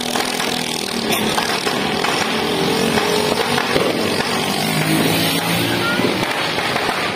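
A motorcycle engine running as the bike rides up the street, over steady background noise.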